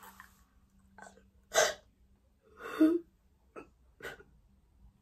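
A person crying in short, separate sobs and gasps, about five of them spread over a few seconds.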